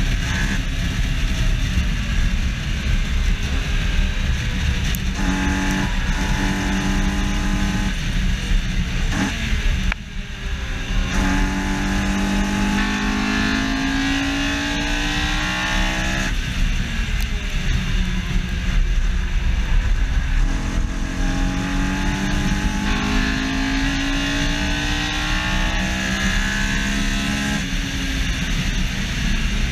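Honda S2000's F20C inline-four engine pulling hard, its note climbing in pitch again and again with sudden drops between as it shifts up through the gears. A heavy rumble of wind and road noise on the bumper-mounted microphone sits underneath.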